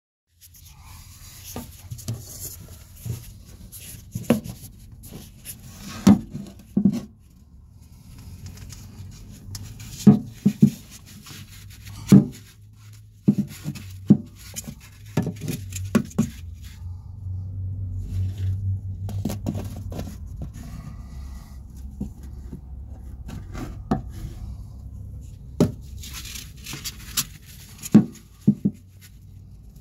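Handling noise from a phone camera moving through a cramped space: irregular knocks, taps and scrapes against hard surfaces over a low rumble, which swells about two-thirds of the way in.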